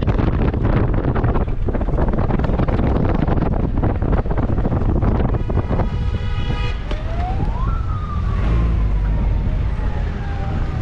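Wind buffeting the microphone over the low rumble of a vehicle on the move, with crackling hits. About halfway through, a horn-like tone sounds for just over a second, followed by a siren-like wail that rises quickly and then falls slowly.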